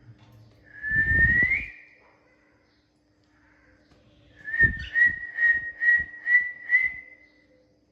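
Parrot whistling: one rising whistle, then a run of about seven short whistled notes at the same pitch, roughly three a second.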